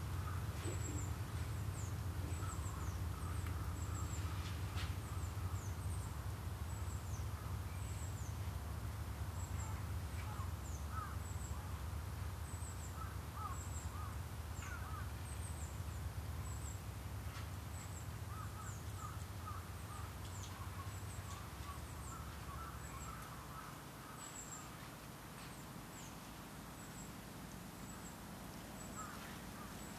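Wild birds calling: many short, very high, thin chirps throughout, with clusters of lower chirping calls between them. Underneath is a low wind rumble that eases off about three-quarters of the way through.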